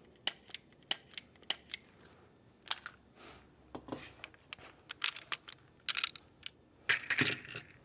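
Taurus G2c 9mm pistol dry-fired with a laser training cartridge: a series of sharp, irregular trigger clicks, quickest in the first couple of seconds, with some handling scuffs.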